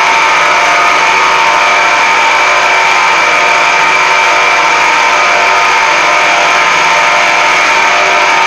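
Machinery running steadily: a constant mechanical hum with a steady high whine, unchanging in pitch and loudness.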